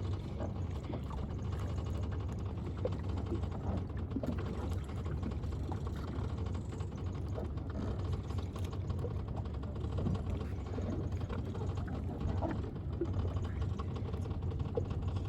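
Small sailing dinghy under way: a steady rush of water and wind with many small scattered clicks and creaks from the hull and rigging.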